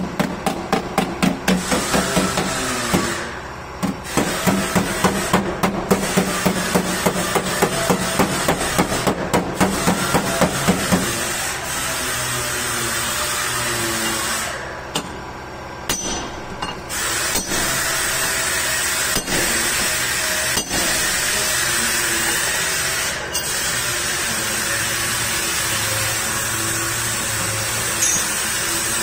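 Hand hammer striking a part in quick, even blows, about three a second, breaking off briefly and then stopping about eleven seconds in. After that a steady mechanical noise runs on.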